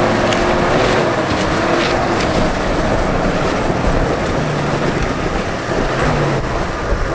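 Engine of an old soft-top 4x4 jeep running at low speed as it crawls over loose rocks, a steady, even mechanical noise.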